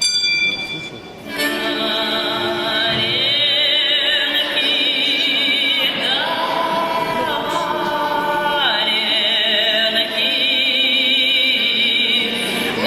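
Recorded music with an operatic female voice singing long held notes with vibrato, opening with a single bell-like struck note before the voice comes in about a second and a half in.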